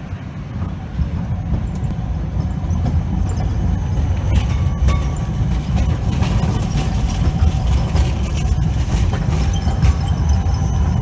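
Siemens Combino tram passing close as it rounds a tight curve, a low rumble swelling about a second in and holding steady. Faint thin squeals from the wheels on the curved rails come in from the middle on, with scattered clicks over the track joints.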